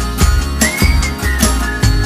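Background music with a steady drum beat and a high melody line that slides up in pitch about halfway through.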